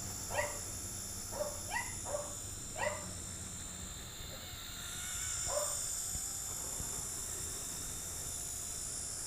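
A dog barking at a passing truck: about five short barks in the first three seconds, then one more a few seconds later. A steady high-pitched whine runs underneath, from the flying micro RC helicopter's motors.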